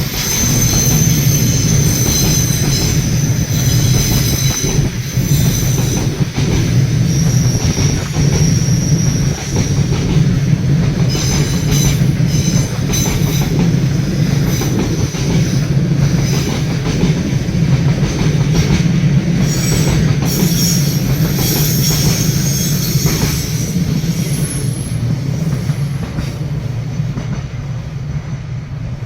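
Freight train of an EF210 electric locomotive and 14 Koki container wagons passing: a steady wheel rumble with high-pitched wheel squeal and clacks over rail joints, easing off slightly near the end.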